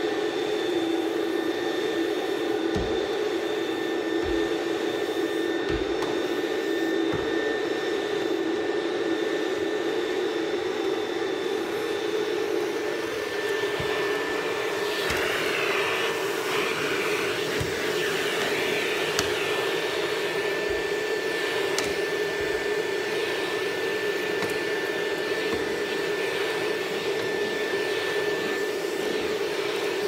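Canister vacuum cleaner running steadily with a hum and a high whine as its hose wand is worked over carpet. Low thumps come now and then, and about fifteen seconds in a wavering rushing noise swells for a couple of seconds.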